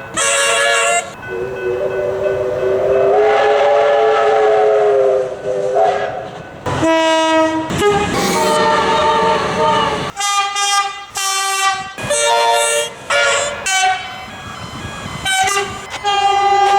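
Australian train horns sounding in a run of separate blasts, each a chord of several tones. One long blast runs from about one to six seconds in, its pitch bending slightly up and then back down, and is followed by a series of shorter blasts.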